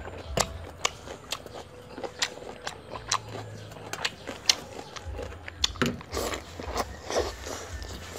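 Close-up chewing: a person eating with the mouth shut, with many sharp, irregular crunching and smacking clicks.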